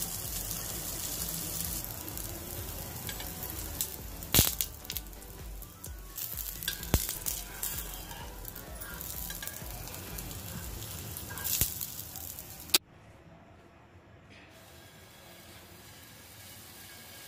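Pancake batter sizzling in hot oil in a nonstick frying pan: a steady hiss broken by a few sharp clicks. About 13 seconds in it drops suddenly to a much fainter sizzle.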